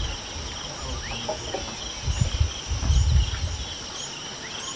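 Steady chorus of insects, two constant high-pitched drones, with birds chirping briefly over it. Twice near the middle, a low rumbling buffet is the loudest sound.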